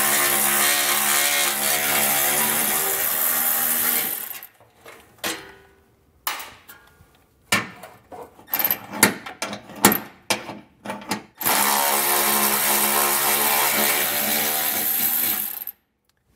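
Cordless power tool running twice, about four seconds each time, to back out the 13 mm bolts that hold the heat shield. Between the two runs there are scattered clicks and knocks of handling.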